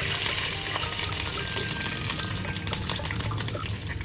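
Water poured into a pan of hot oil tempered with mustard seeds, curry leaves and green chillies, hissing and bubbling and slowly easing off.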